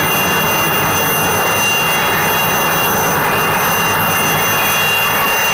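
Indian Navy Chetak helicopter's turboshaft engine running on the ground with the main rotor turning: a loud, steady rush with a high turbine whine over it.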